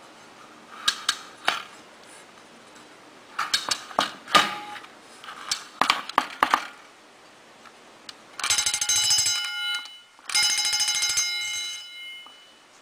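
Emdeko model 115-A 6½-inch wind-up heat-detector fire bell: scattered knocks and clicks as the bell is handled, then two short bursts of very rapid ringing, about eight and ten seconds in, the second trailing off near the end.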